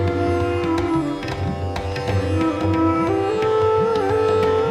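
Background instrumental music: a plucked string melody with held notes that slide in pitch, over a steady hand-drum beat.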